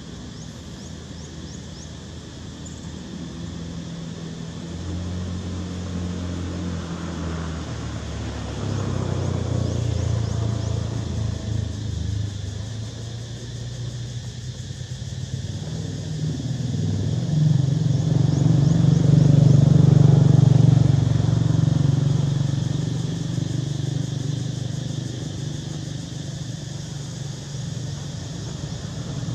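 A motor vehicle's engine running with a low hum that shifts in pitch a few times, growing louder to a peak about two-thirds of the way through and then fading.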